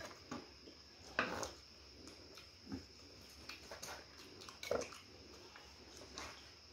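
Close-miked eating noises: chewing and smacking on fried chicken and a knife tapping and scraping on a wooden cutting board, in short irregular sounds. Two are louder, about a second in and just under five seconds in.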